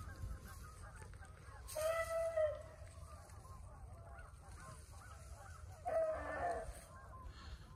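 A pack of beagles baying on a rabbit's track: a chorus of overlapping calls, with two louder, drawn-out bawls about two seconds in and about six seconds in. Wind rumbles on the microphone.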